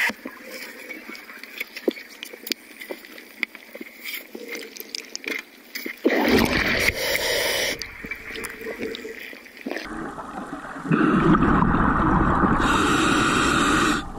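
Underwater sound through a diver's camera: scattered clicks and crackles, then loud gurgling bursts of exhaled bubbles from a scuba regulator, about six seconds in and again from about eleven seconds in.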